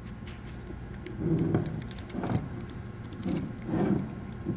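A hand crimping tool and Cat6a cable being handled while the conductor ends are trimmed with the crimper's cutting blade. Scattered small sharp clicks and jangly clinks, with three duller bursts of handling noise at about one, two and three and a half seconds in.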